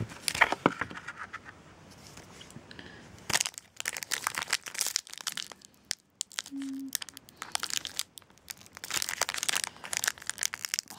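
Foil trading-card booster pack wrapper crinkling and crackling in irregular bursts as two hands grip and pull at its sealed top edge, trying to tear it open. It resists tearing, and the crinkling starts in earnest about three seconds in after some light handling clicks.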